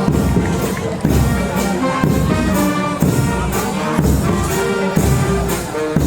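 Background music with a steady beat: held notes over a regular pulse, with a strong low hit about once a second.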